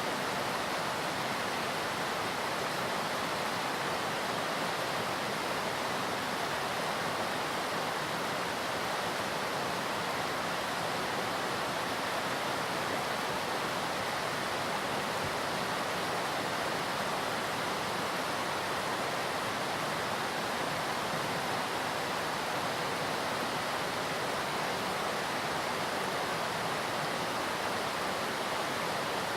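Steady, unbroken rush of a high-volume waterfall, with no breaks or changes.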